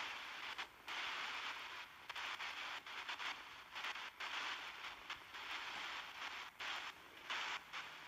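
Hissing radio static from a small speaker, chopped into short stretches that cut out and come back every half second to second, as from a ghost-hunting device sweeping through radio noise.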